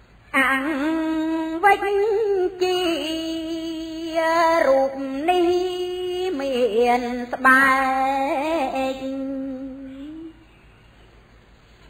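A woman's solo voice chanting Khmer smot, Buddhist verse sung in long held notes that waver and slide between pitches. She breaks off about ten seconds in.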